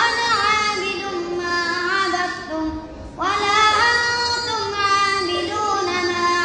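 A boy's voice chanting Quranic recitation aloud as he leads congregational prayer, in long melodic phrases with held, gliding notes. He pauses for breath about three seconds in, then begins a second phrase.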